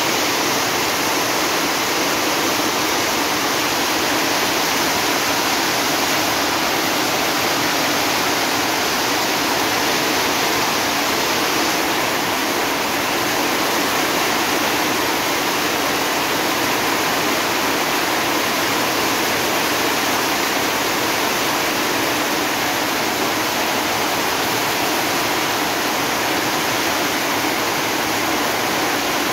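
Torrential rain pouring steadily onto paved and muddy ground and standing water, a dense unbroken wash of noise.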